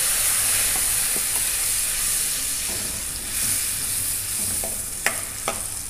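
Ground spice paste sizzling in hot mustard oil in a steel kadhai while a spatula stirs it. The sizzle fades gradually as the paste takes up the oil, and the spatula knocks against the pan twice near the end.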